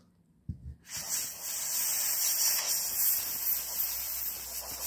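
Steady hiss of air blown by mouth through a small tube into a smartphone's microphone opening to blow the dust out of it. The hiss starts about a second in, after a couple of soft knocks.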